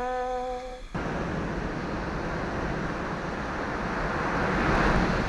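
About a second of music, then a sudden cut to the steady rush of surf and wind on the microphone, swelling louder toward the end.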